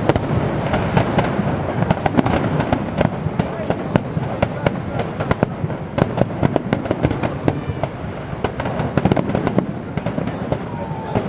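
Aerial fireworks display going off: a dense, irregular run of sharp bangs and crackles over a continuous background din.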